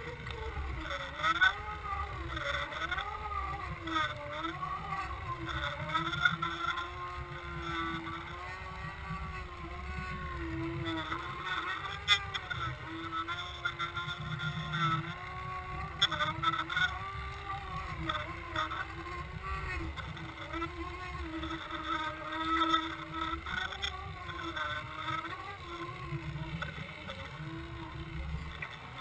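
Boat's motor heard underwater through a towed camera housing: a steady drone that wavers up and down in pitch, over a low rumble, with a few sharp knocks.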